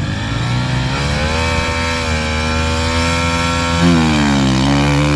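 Motocross bike engine held at high revs, a steady buzzing note; about four seconds in it gets louder and the revs waver up and down.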